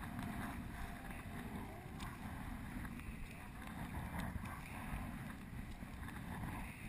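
Sea kayak paddling in choppy water: a double-bladed paddle dipping and splashing on alternating sides, with water lapping the hull. Wind rumbles steadily across the camera's microphone and is the loudest sound.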